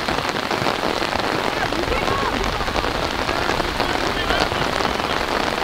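Steady patter of rain on a surface, with faint distant voices calling now and then.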